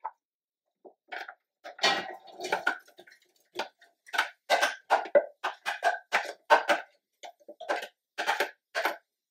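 Sliced raw yellow squash tipped out of a plastic container into a nonstick air fryer basket: a run of short, irregular taps and knocks, a few a second, as the slices drop in and the container is shaken.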